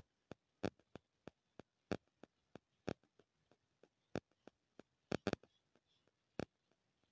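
Irregular sharp clicks and taps, two or three a second, as rice flour is tipped from a container into a steel mixer-grinder jar.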